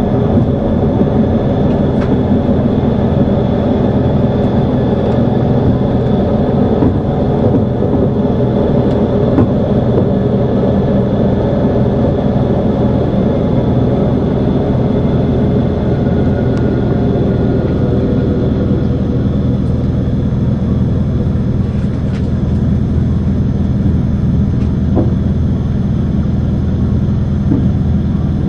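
Trans-Siberian passenger train running steadily along the track, heard from inside a compartment: an even low rumble with a few faint clicks.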